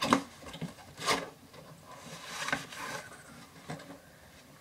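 A box being handled and opened: two sharp knocks, then a scraping rustle.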